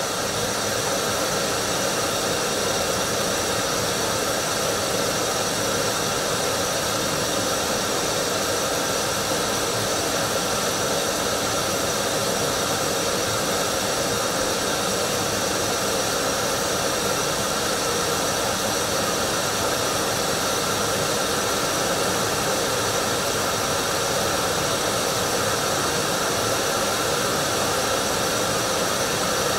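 Gas canister stove burning at full flame with a steady rushing hiss, heating a metal mess kit pan of water that is nearing the boil.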